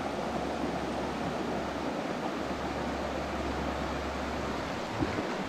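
Steady rush of a small river flowing over stones and gravel.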